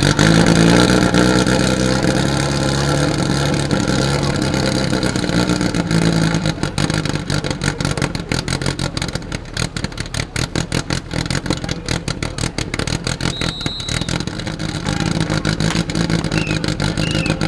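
Firesport team's portable fire-pump engine run up hard to full throttle at the start and held at high revs while it pumps water. Its note becomes less even after about six seconds.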